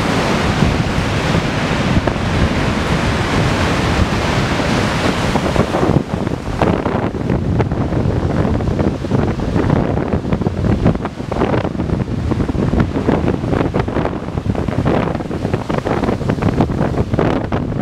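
Ocean surf breaking on a sandy beach, a steady wash of hiss, mixed with wind buffeting the microphone. After about six seconds the surf hiss thins and the rough, gusty rumble of wind on the microphone takes over.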